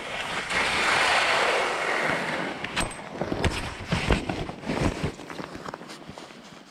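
Skis hissing and scraping over packed snow on a downhill run: a long hiss about a second in, then a string of sharp clicks and knocks.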